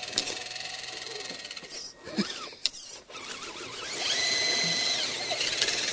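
Honcho RC crawler's electric motor and gear drivetrain whining as the truck crawls, with a few clicks partway through. About four seconds in, the whine gets louder and holds a steady high pitch.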